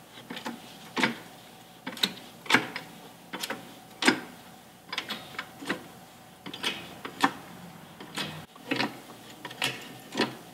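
Hydraulic jack being pumped, each stroke giving sharp metallic clicks, often in pairs about every second and a half. The jack is pushing up on a wrench handle to break loose a seized leaf-spring mounting bolt.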